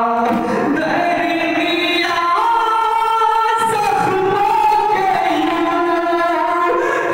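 A man's voice singing a noha, an Urdu lament, unaccompanied into a microphone, in long held notes that bend between pitches.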